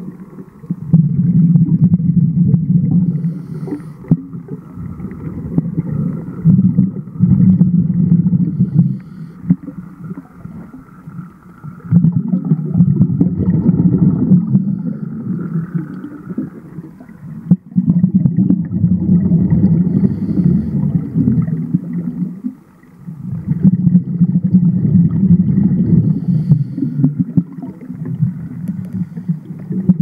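A diver's exhaled air bubbles rumbling and gurgling underwater, in bursts of a few seconds with short lulls between breaths.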